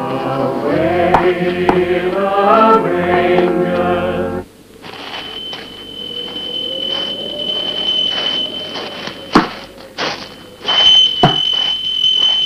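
Organ music swelling with rising chords, cutting off suddenly about four seconds in. Then a steady hiss with a thin, steady high-pitched whine over it and a few sharp clicks.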